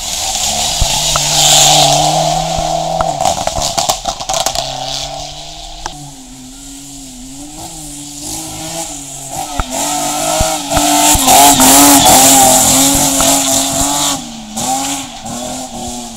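Rally cars driven flat out through a tarmac hairpin. A Mitsubishi Lancer Evolution's turbocharged four-cylinder revs hard through the bend with tyre squeal. From about six seconds in, a second car's engine rises and falls as it is driven through the corner, loudest in the second half.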